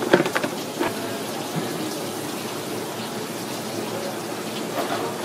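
Water running steadily from a shower-head sprayer onto a cutting board, with a few knocks and clatters in the first second.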